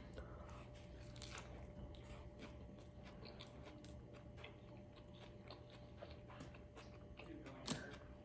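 Quiet close-up chewing of a cheeseburger: faint, soft wet mouth clicks throughout, with one louder mouth sound near the end.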